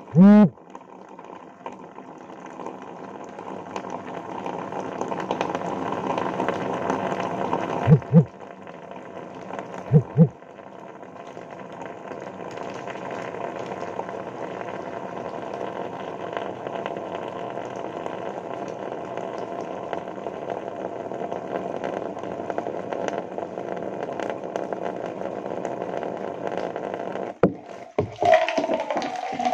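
Steady wet water noise of hair being washed over a bathtub, with two short thumps about eight and ten seconds in. Near the end the sound turns louder as a basin and the tap are handled.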